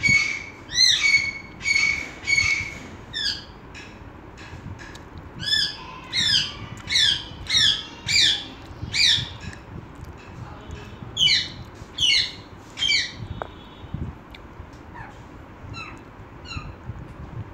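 A bird calling over and over in short, sharp squawks that sweep down in pitch, about one a second. There is a pause a few seconds in, and the calls thin out in the last few seconds.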